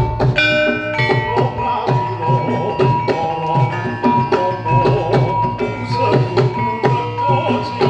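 Javanese gamelan music for a krida turangga horse dance: ringing metal keyed instruments and gongs over regular kendang drum strokes, with a long high note held from about a second in.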